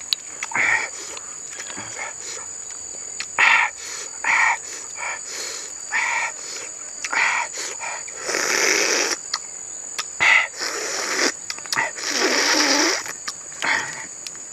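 Close mouth sounds of a man eating roasted duck eggs: a run of short smacks and chewing noises, with two longer slurps about eight and twelve seconds in. Under them runs a steady high insect drone.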